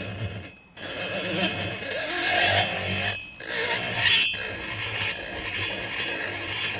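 Die grinder burr cutting into the exhaust port of a Husqvarna 266SE chainsaw cylinder, widening the port roof. It grinds in runs, letting up briefly three times: just under a second in, a little past the middle, and about a second after that.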